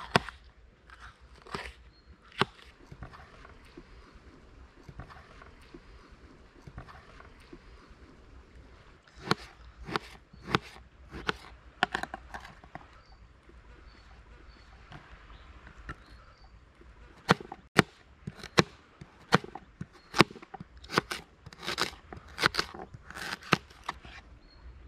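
Kitchen knife chopping vegetables on a plastic cutting board: sharp knocks a few a second, in two runs, one about a third of the way in and a longer one in the last third.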